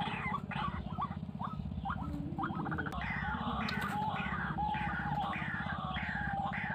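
White-breasted waterhen calling: short harsh notes repeated over and over, settling into an even run of about two a second after a few seconds, over a steady low hum.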